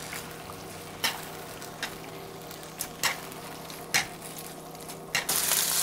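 Rice noodles sizzling and frying in a nonstick wok as they are tossed and stirred with a wooden spatula and plastic tongs, with about four light clicks of the utensils against the pan. The sizzle grows louder about five seconds in.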